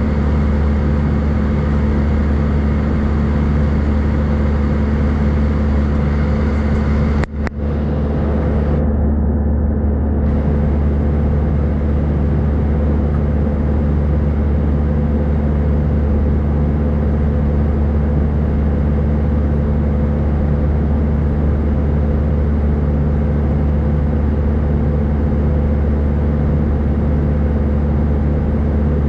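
Airbus A319 cabin noise in flight, heard from a window seat over the wing: a steady jet engine drone and airflow hiss over a constant low hum. A single brief click comes about seven seconds in.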